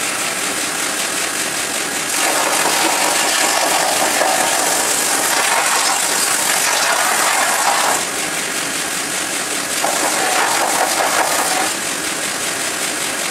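Belt sander running steadily as the edge of a 20 mm beech-plank shield is sanded. It grows louder and harsher while the wood is pressed to the belt, for about six seconds from two seconds in and again for a moment near the end.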